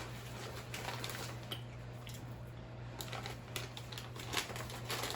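Faint, irregular light clicks and crinkles over a steady low hum.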